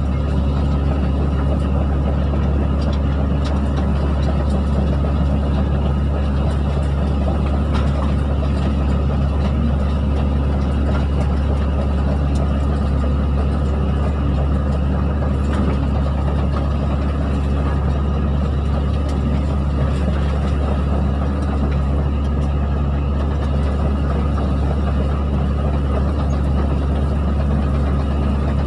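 Hydraulic excavator's diesel engine running steadily under working load, a constant deep drone with no let-up.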